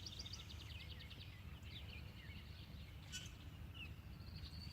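Songbirds chirping and trilling in quick repeated notes over a low steady rumble, with one short click about three seconds in.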